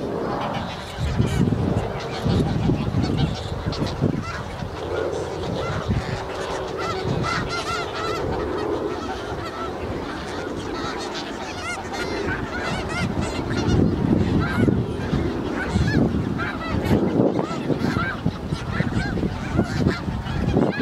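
A flock of snow geese calling without a break, with many short honks overlapping one another.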